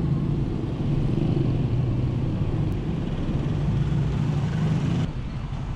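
Engine of a moving road vehicle running with a steady low hum under road and wind noise; the sound drops a little quieter near the end.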